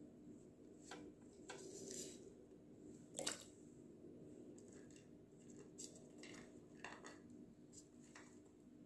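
Near silence: room tone with a faint, steady low hum and a few faint small clicks, the clearest about three seconds in.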